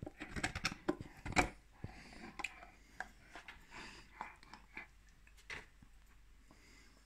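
Irish wolfhound gnawing a bone held in a hand: teeth clicking, crunching and scraping on the bone. The bites come thick and fast for the first couple of seconds, then thin out to a few scattered crunches.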